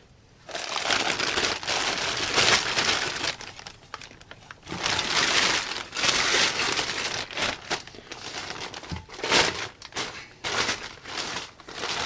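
Thin plastic bag crinkling and rustling as it is pulled off a new brake disc, in irregular bursts with short pauses.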